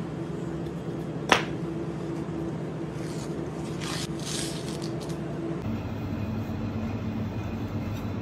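A steady low hum, with a sharp knock a little over a second in, then a rasping tear around four seconds in as the skin is pulled off a flatfish on the cutting board.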